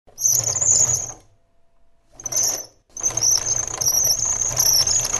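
The robot's two small electric wheel motors whining as it drives and turns, in three bursts: a one-second run, a short one about two seconds in, and a longer one from about three seconds in.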